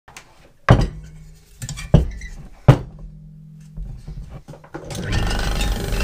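Three sharp knocks, each leaving a low hum ringing after it, then some lighter clatter. About five seconds in, a steady mechanical hum like a running motor starts up.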